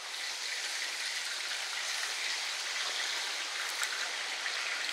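A steady rushing hiss, like running water, that comes in suddenly at the start and holds level throughout.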